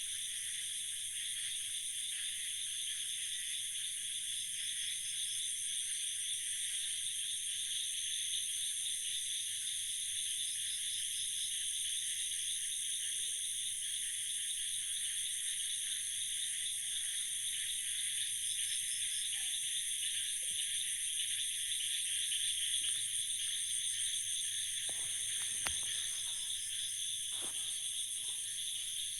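Night-time insect chorus: a steady, high continuous trilling, with short pulsed chirp trains repeating every few seconds. A few faint clicks near the end.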